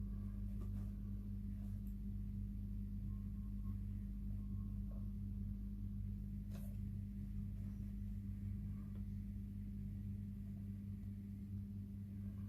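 A steady low hum, with a few faint brief clicks of handling, the clearest about two-thirds of the way through.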